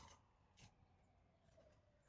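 Near silence. A faint whistle-like tone slides slowly downward as it fades out, and there is one faint tap about half a second in.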